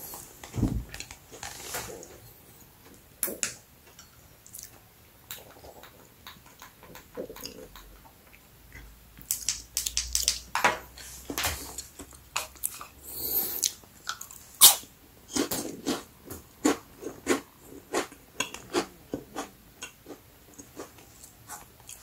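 Chocolate-coated crispy bread being bitten and chewed close up, with sharp, irregular crunches. The crunches are sparse at first and come thick and fast from about nine seconds in.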